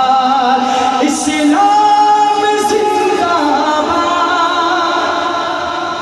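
A man singing a devotional kalam into a microphone, holding long, wavering notes that are amplified.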